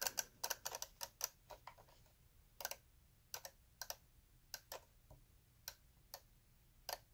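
York DC-92 flip clock radio's minute cards flipping over with sharp clicks as the time-set knob is turned: a quick run of clicks in the first two seconds, then single clicks about every half second.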